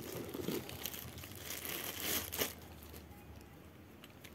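Clear plastic packaging bag crinkling and rustling as a baitcasting reel is pulled out of it, loudest a little past two seconds in, then dying down to quiet handling.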